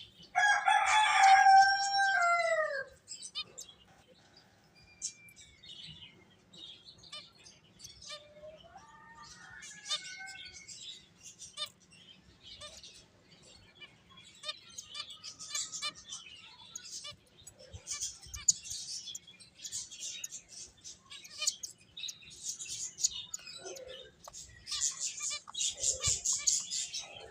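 Finches chirping in short high notes that grow busier and denser towards the end. Near the start comes one loud, lower, drawn-out call of about two seconds, dropping in pitch as it ends.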